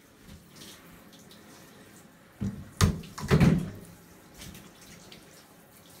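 Hand-held shower head running water over a Siberian husky's coat in a bathtub. A few loud knocks and thuds come about halfway through.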